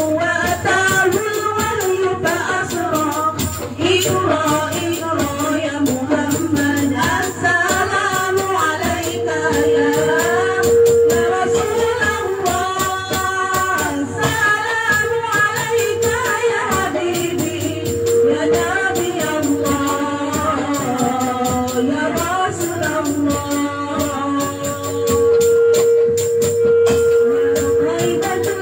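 Hadroh ensemble performing: young women's voices sing a melodic Islamic devotional song in unison through a PA system over fast, dense frame-drum (rebana) playing with jingling tambourine-like rattle.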